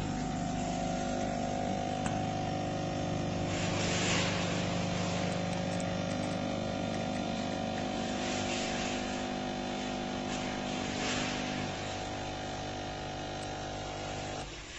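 Electric coffee maker running: a steady motor or pump hum that stops suddenly near the end, with brief hissing swells three times along the way.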